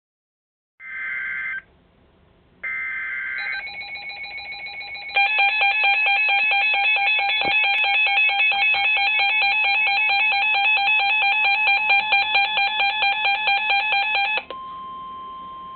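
NOAA Weather Radio emergency alert: two short bursts of buzzy SAME digital header data, then a weather alert radio's electronic alarm sounding a rapid alternating multi-tone warble for about nine seconds. Near the end this gives way to the steady 1050 Hz Weather Radio warning tone, announcing a severe thunderstorm warning.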